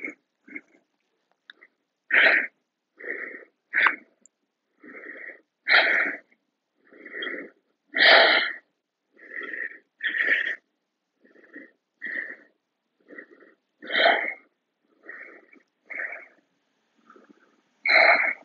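A person breathing audibly and raspily through the throat, short breaths in and out about once a second, while folded in plough pose with the chest compressed.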